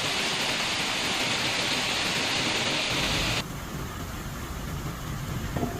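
Heavy rain hissing steadily; about three and a half seconds in it cuts abruptly to a quieter, lower rumbling noise.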